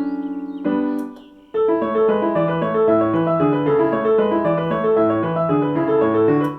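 Korg SP-250 digital stage piano playing: a held chord that pulses quickly, a short chord, then after a brief pause a steady run of flowing broken-chord figures that stops near the end.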